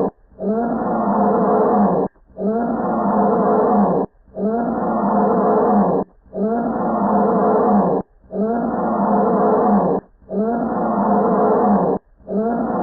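Cinnamon bear (the brown colour phase of the American black bear) calling over and over. Each call is about two seconds long and rises then falls in pitch, followed by a brief break, and the same call repeats about six times at an even pace.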